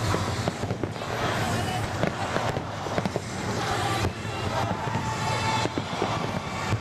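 Fireworks display: a continuous run of bangs and crackling bursts, with a few short whistles among them.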